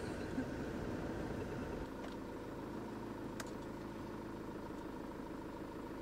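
Motorhome engine running steadily, heard from inside the cab as it is driven slowly. The low rumble drops off about two seconds in while the engine's drone carries on.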